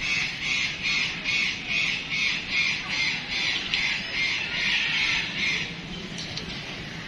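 A bird squawking over and over, harsh calls at about two or three a second, that stop shortly before the end.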